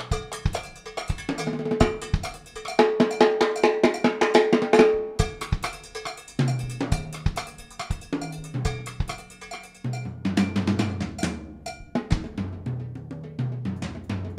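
Drum kit played solo: fast, dense strokes on drums and cymbals. In the second half the toms come forward, their low pitches stepping up and down from stroke to stroke.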